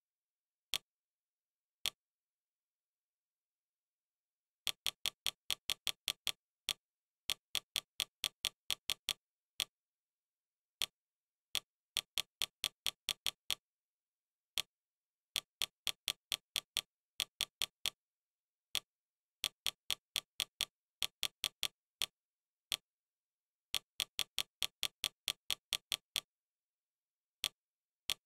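Fire TV interface navigation clicks: short, sharp ticks as the selection highlight steps from item to item. They come singly and in quick runs of about five or six a second, with total silence between.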